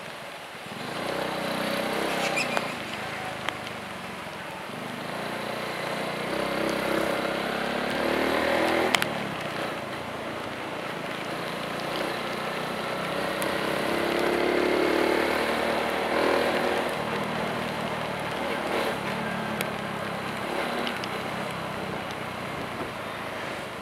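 Vehicle engine rising and falling in pitch as it speeds up and eases off several times, over a steady hiss of tyres on a wet road, with a single sharp knock a little before the middle.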